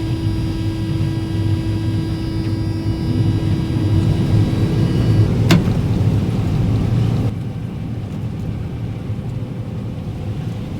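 John Deere combine running with a steady low hum. A steady whine runs over it for about five seconds and then stops, a sharp click follows, and the running sound drops a little about two seconds later.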